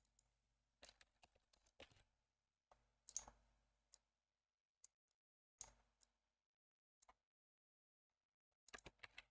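Near silence broken by faint, scattered clicks of a computer mouse and keyboard, with a quick run of several clicks near the end.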